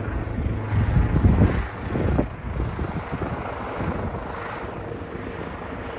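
Helicopter flying overhead, a steady low drone of rotor and engine, with louder rumbling gusts on the microphone in the first two seconds; the drone then drops away.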